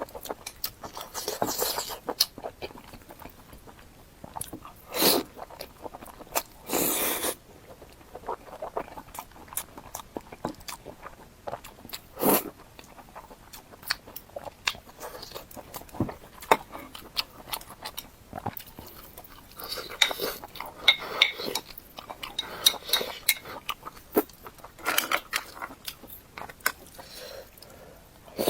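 Close-up eating sounds: bites and chewing, with irregular crisp crunches and a few louder crunching bites scattered through.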